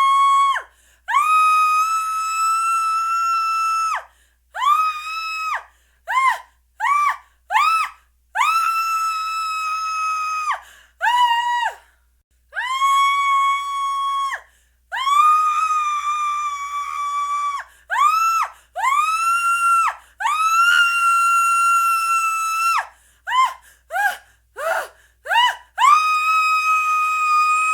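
A woman screaming in fear again and again, very high-pitched and shrill. Long held shrieks of two to three seconds, each rising in pitch as it starts, alternate with runs of short sharp screams, with brief breaks between them.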